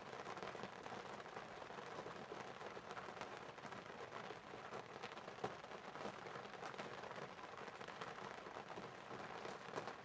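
Faint, steady rain, with a few sharper clicks, one about halfway through and one near the end.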